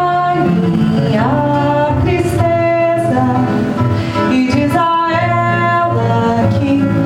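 A woman singing held, sliding melodic notes over acoustic guitar accompaniment.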